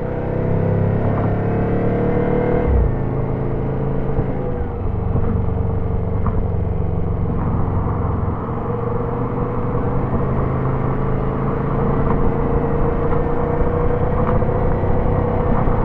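Turbocharged Subaru engine pulling along a highway over steady road rumble, with a faint turbo whine above it. The engine tone climbs for the first few seconds, drops abruptly about three seconds in, then rises slowly again.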